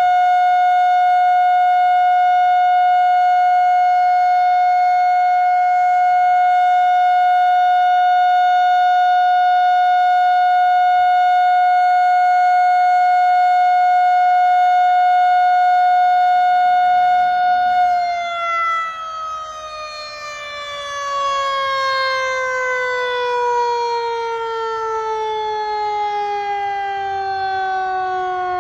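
Darley Model 2 tornado siren sounding a steady tone at full speed during a siren test, then cut off about two-thirds of the way through and winding down, its pitch falling steadily.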